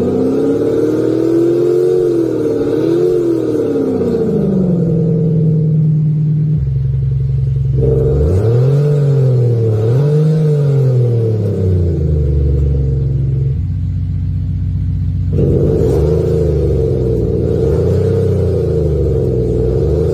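Mercedes-Benz E450 coupe revved while standing still, its exhaust note boosted by an aftermarket JUST active sound generator (a 'virtual exhaust'). The note rises and falls in several quick rev blips, and its character switches abruptly a few times.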